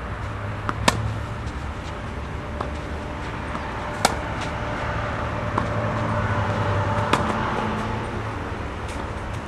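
Tennis rally: a racket striking the ball, sharp pops about every three seconds, with fainter hits in between. A steady low hum of traffic runs underneath.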